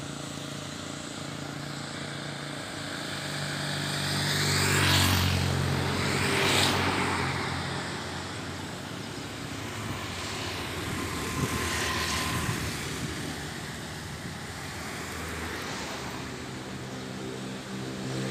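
Motor vehicles passing by one after another over a low engine hum, each swelling and fading; the loudest passes come about five and six and a half seconds in, with another around eleven to twelve seconds.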